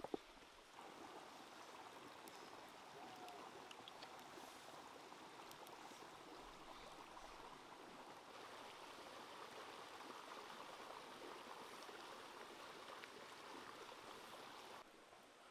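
A small rocky stream running: a faint, steady rush of water that starts abruptly about a second in and cuts off abruptly near the end, with one sharp click at the very start.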